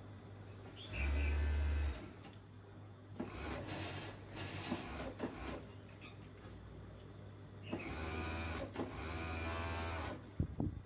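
Industrial overlock sewing machine running in short stop-start bursts of about a second each, stitching an elastic waistband onto shorts, with a few sharp clicks near the end.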